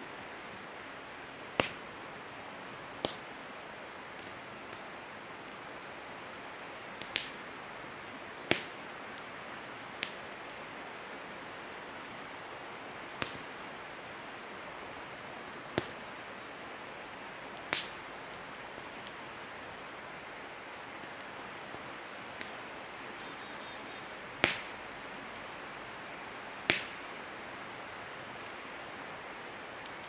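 Wood campfire in a stone fire ring crackling: about ten sharp, irregular pops a second or more apart over a steady hiss.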